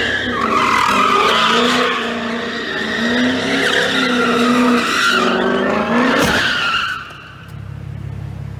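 Sports car drifting in circles on a concrete parking deck: the engine is held at high revs, rising and falling, while the tyres squeal continuously. About six seconds in there is a sudden sharp sound, and the engine drops to a lower rumble.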